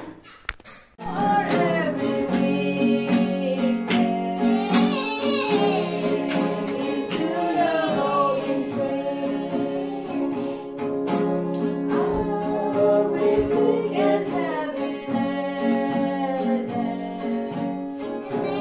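Acoustic guitar played while a small group of voices sings along, starting about a second in.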